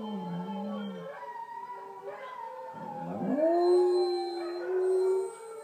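A chorus of howling. About three seconds in, a Spanish Podenco joins with one long howl that rises in pitch, then holds steady as the loudest sound, and stops shortly before the end.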